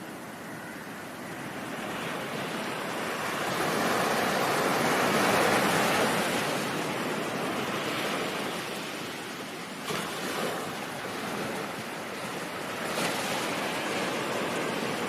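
Ocean surf: a wave washes in, swelling to its loudest about five seconds in and slowly drawing back, with smaller surges near ten and thirteen seconds.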